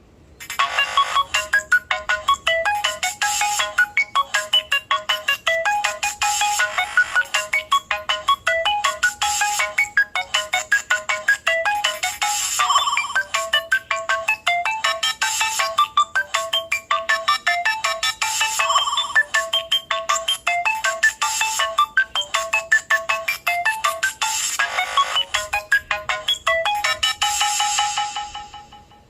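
HTC Desire 530 ringtone playing: a quick electronic melody of short, bright notes with no bass, starting about half a second in and fading out near the end.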